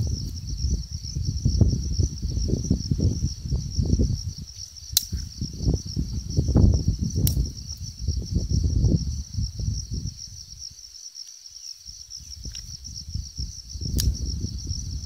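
Insects chirring in a steady, finely pulsing high drone over a low, gusty rumble that drops away briefly about eleven seconds in, with a few sharp clicks.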